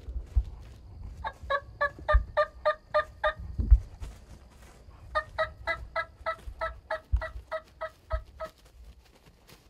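Turkey calling in two runs of evenly spaced notes, about four a second: nine notes, a pause of about two seconds, then about a dozen more. A few low thumps fall among them.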